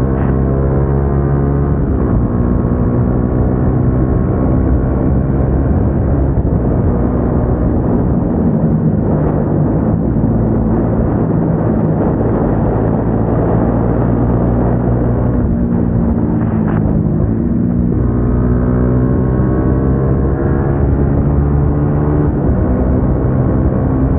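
Single-cylinder sport-motorcycle engine with an aftermarket exhaust, running at cruising revs. Its note falls about two seconds in and again around sixteen seconds as the throttle eases, and holds steady in between.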